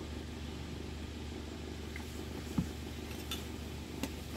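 Steady low background hum with a few light clicks and taps of small metal motor parts being handled, the sharpest a little past halfway.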